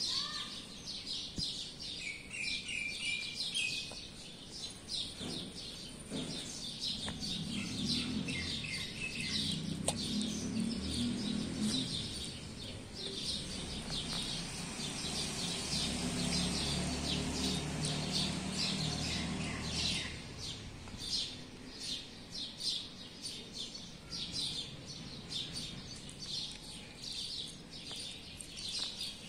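Many small birds chirping busily and continuously, with a low rumble underneath from about seven to twenty seconds in.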